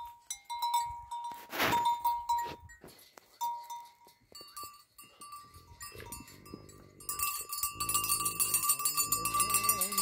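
A metal animal bell clanking now and then, turning to steady jingling from about seven seconds in, with an animal calling repeatedly underneath.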